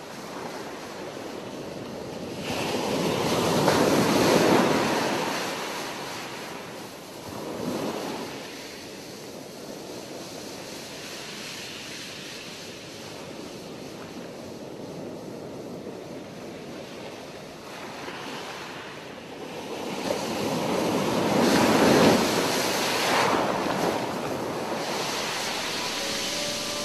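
Sea surf breaking on a beach in strong wind, with wind rushing over the microphone and two loud surges.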